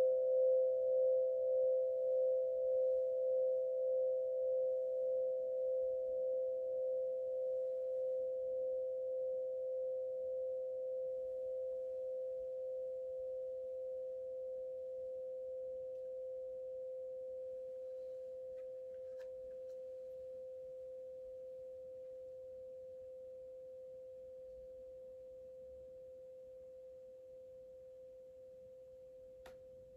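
A struck singing bowl ringing out: one pure tone with a fainter tone just above it, pulsing slowly in loudness and fading away gradually.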